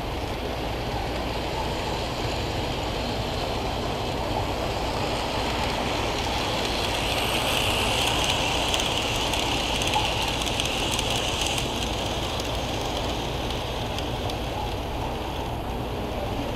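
Model train running on the layout track: a steady rolling noise that grows louder, with faint clicking, for a few seconds in the middle, then eases off.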